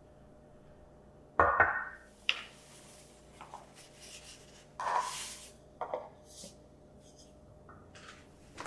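Glass storage jar and paper flour bag being handled on a stone counter: a knock about a second and a half in, then crinkling of the paper bag as flour is poured from it into the jar, with a few lighter knocks and a click near the end.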